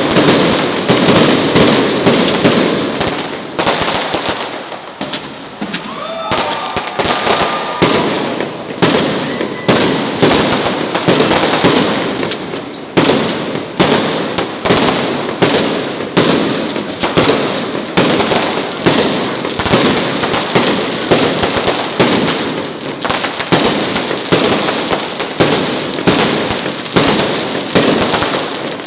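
Fireworks going off in a continuous rapid barrage of sharp bangs and crackles, many a second, easing slightly about five seconds in, with a short rising whistle soon after.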